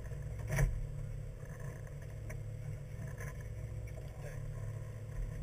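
Fishing boat's engine running with a steady low hum, with a sharp knock on deck about half a second in.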